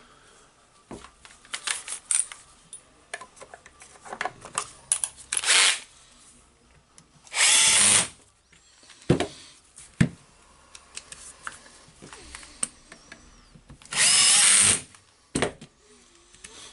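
Cordless drill-driver running in short bursts as it drives screws into a rotary hammer's housing: a brief run a little past a third of the way in, then two runs of about a second each, one near the middle and one near the end. Between the runs there are small clicks from screws and parts being handled.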